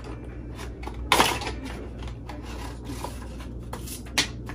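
Cardboard packaging being handled: a small box opened and its cardboard insert slid out, with rubbing and scraping. There is a louder scrape about a second in and a short, sharp sound near the end.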